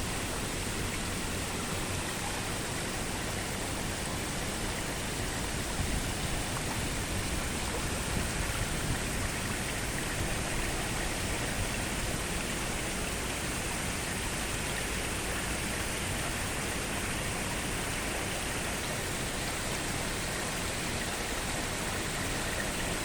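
Steady, unbroken rush of water noise, even across low and high pitches with no separate splashes or drops standing out.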